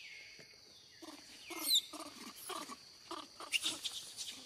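Young pig-tailed macaques calling: a run of short, pitched calls about two a second, with a couple of high squeaky cries among them.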